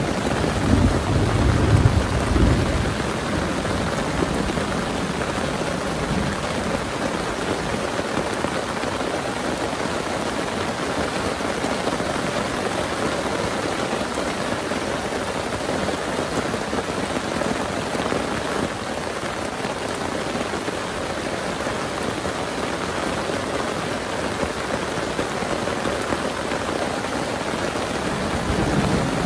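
Heavy rain pouring steadily. A low rumble of thunder sounds in the first couple of seconds.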